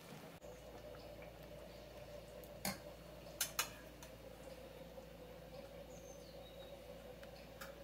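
A metal spoon clicking against a small porcelain bowl: a few short clicks about three seconds in and one more near the end, over a faint steady hum.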